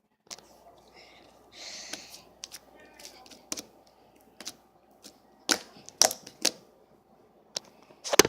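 Slime being handled and pressed, giving a string of sharp clicking pops at uneven intervals and a short squishy rustle about two seconds in. The loudest pops come near the end.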